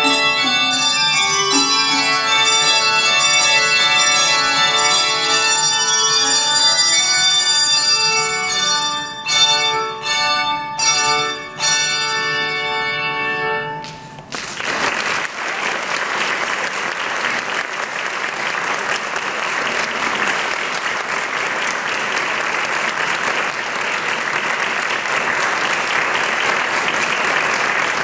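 Handbell choir ringing sustained chords, with a few sharp accented strikes near the close of the piece. The bells stop about halfway through, and steady audience applause follows.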